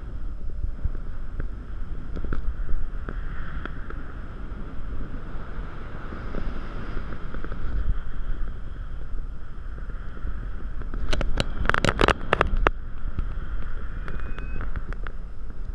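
Wind noise from the airflow of a paraglider in flight buffeting a GoPro Hero 3's microphone: a steady low rumble. A quick cluster of sharp clicks and rattles comes about eleven seconds in.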